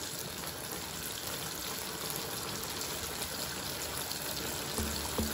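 Food frying in hot oil in a pan: a steady sizzling hiss with a few faint crackles.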